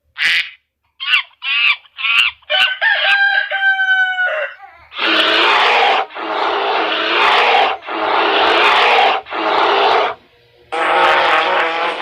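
Chicken sounds: a few short clucks, then a rooster crowing, followed by several long, loud, harsh animal calls, the last one wavering in pitch.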